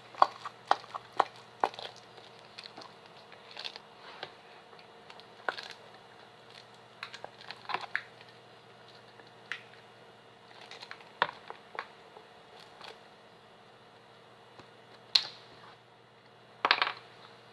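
Plastic bottles of clear glue crinkling and clicking irregularly as they are squeezed to press out the last of the glue. The clicks come thick at first, thin out, then come in two louder bursts near the end.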